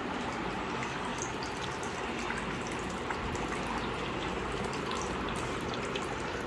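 A thin jet of water running steadily out of a hole in a plastic bottle and splashing into a container below, with a few faint ticks.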